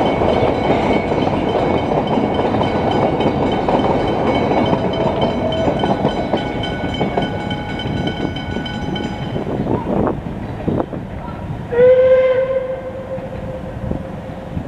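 Puffing Billy's narrow-gauge wooden carriages rolling over a level crossing with clickety-clack, while the crossing's warning bells ring in steady high tones. Both stop about two-thirds in after a few sharp clicks. About twelve seconds in a steam locomotive whistle sounds one long steady note, the loudest sound here.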